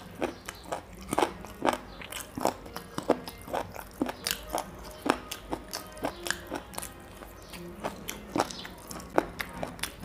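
A man eating curried chicken leg pieces by hand, close to the microphone: bites and chewing heard as irregular short sharp clicks, a few a second.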